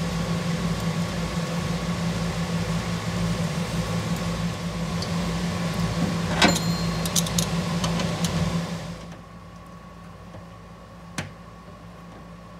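A steady machine hum with a low, pulsing beat that shuts off about nine seconds in. Two sharp clicks, one before the hum stops and one after.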